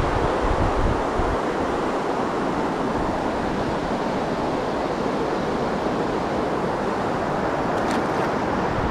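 Creek water rushing, a steady even hiss, with wind buffeting the microphone as a low rumble in the first second or so.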